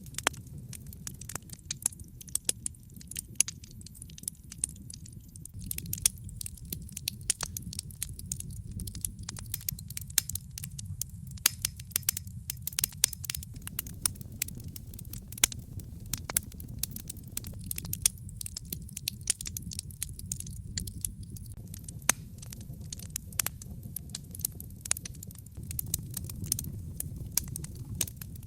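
Wood fire burning in a fireplace: a steady low rumble of the flames under constant crackling, with irregular sharp pops several times a second.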